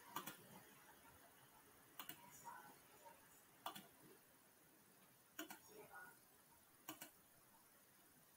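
Near silence with five faint sharp clicks, about one every second and a half to two seconds, most of them quick double clicks, like a computer mouse button being clicked.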